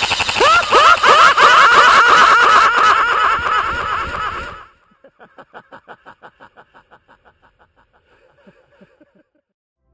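Automatic-fire sound effect: a loud, rapid, evenly spaced clatter of shots with sweeping whistles over it, cutting off about four and a half seconds in. A train of fainter taps follows, slowing and fading away.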